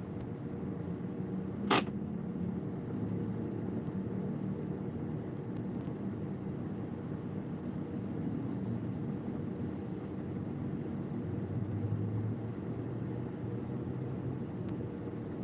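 Steady low hum of vehicle engines in slow, congested road traffic, with one sharp click about two seconds in.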